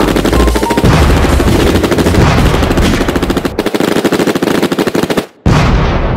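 Machine-gun fire sound effect: a rapid, unbroken run of shots for about five seconds. After a short break comes an explosion that dies away slowly.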